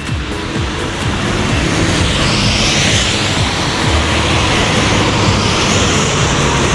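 Road traffic on a wet road covered in snowmelt: tyres hissing on the wet pavement, swelling as a vehicle passes about two to four seconds in.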